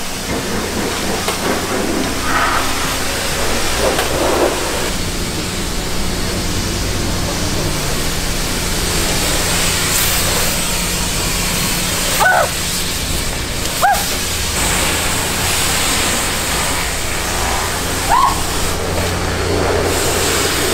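High-pressure car wash wand spraying water onto a car body: a steady, loud hiss over the low hum of the wash pump, for the first clear-water rinse. A few short high chirps cut through about midway and near the end.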